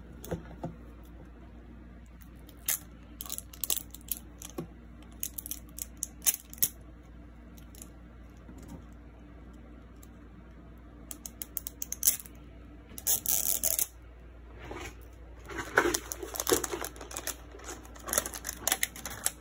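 A red wrapper being peeled and picked off a small plastic toy capsule: scattered small crinkles and clicks, with louder runs of rustling about 13 seconds in and again around 16 seconds.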